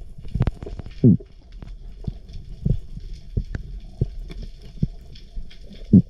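Underwater sound picked up through a camera's waterproof housing: scattered clicks and knocks over a low rumble, with a short, louder low thump about a second in and another near the end.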